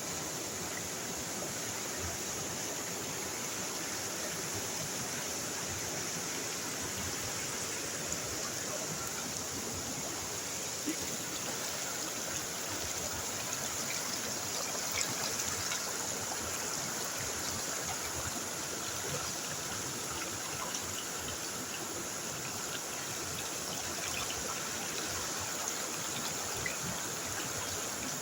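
Stream water running and trickling steadily, with a continuous high hiss over it.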